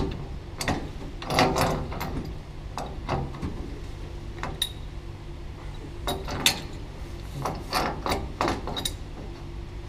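Heavy steel Stillson pipe wrench working a threaded sprinkler-pipe joint: irregular metallic clicking and scraping as the jaws grip, slip and are reset on the pipe, with a few sharp ringing clanks. A steady low hum runs underneath.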